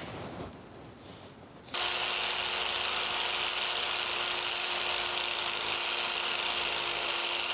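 Biax electric power scraper running, its blade cutting into the cast-iron way of a metal planer base: a steady noisy hiss with a faint steady hum. It starts abruptly about two seconds in, after a quieter stretch.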